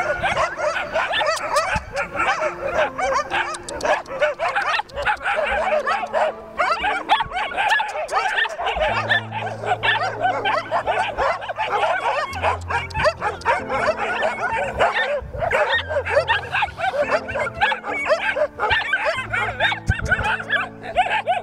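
Several stray dogs barking and yelping over one another, almost without pause. Background music with held low notes plays underneath and becomes more prominent from about nine seconds in.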